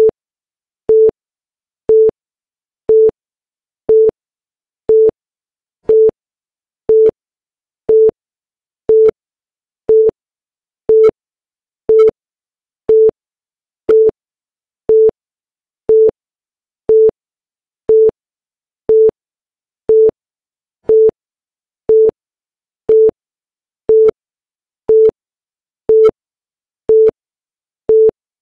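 Short electronic beep of one steady pitch, repeated exactly once a second, with silence between beeps: a timing signal marking each second of a chronometer.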